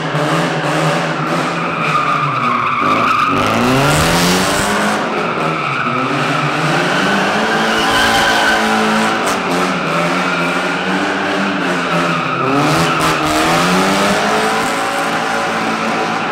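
A car drifting on concrete: its tyres screech steadily while the engine revs up and falls back again and again.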